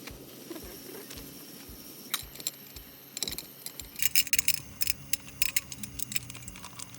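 Irregular light clicks and clinks of small hard objects, growing busier about four seconds in.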